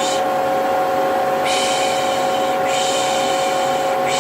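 Vacuum cleaner running steadily with a constant motor whine, while long 'shh' shushing sounds come and go over it, about one a second and a half apart, the soothing 'pış pış' used to calm babies.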